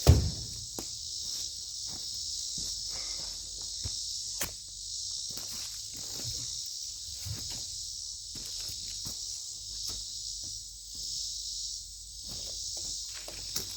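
Steady high-pitched chorus of insects, with footsteps and scattered light knocks over it. A single heavy thump right at the start is the loudest sound.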